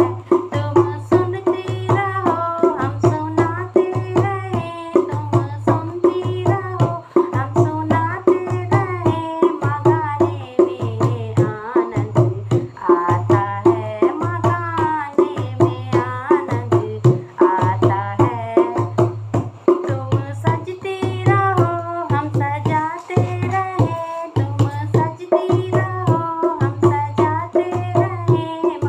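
A woman singing a Hindi devotional bhajan to the mother goddess, a wavering solo melody over a steady low hand-drum beat of about one stroke a second and a held drone tone.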